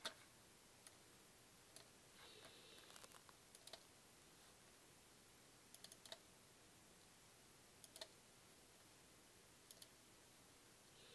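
Faint computer mouse clicks, some single and some in quick double-click pairs, a second or two apart. About two seconds in there is a short run of quick ticks.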